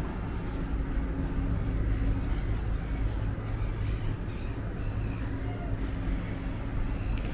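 Steady low rumble of road traffic, with a few faint chirps above it.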